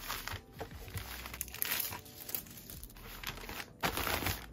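Plastic poly mailer crinkling and rustling in irregular bursts as a folded tote bag is pushed inside and the envelope is handled, with a short pause near the end.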